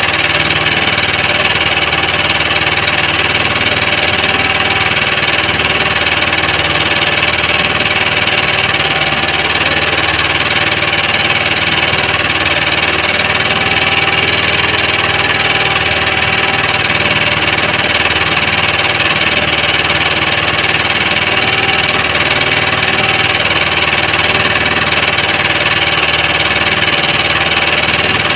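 A small engine aboard an outrigger fishing boat running steadily, a constant unbroken drone.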